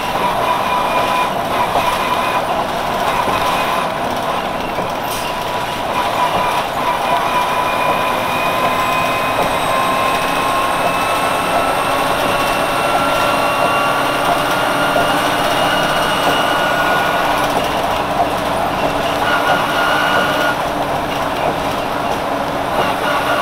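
A 1999 Nova Bus RTS-06 transit bus with a Detroit Diesel Series 50 engine and ZF Ecomat transmission running under way. A whine climbs slowly in pitch for several seconds, drops off near the three-quarter mark, then starts climbing again.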